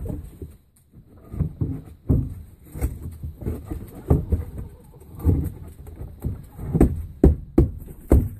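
Irregular knocks, bumps and rustling right at the microphone, from a hen's feathered body pressing and brushing against the camera.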